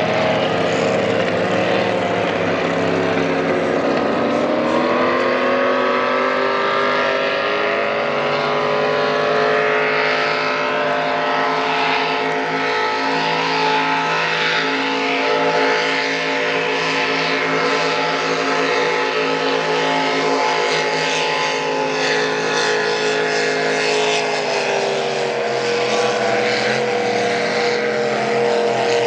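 Engines of several racing boats running flat out at a distance: a steady, multi-toned drone whose pitches slowly rise a few seconds in and drift down near the end as the boats pass and change speed.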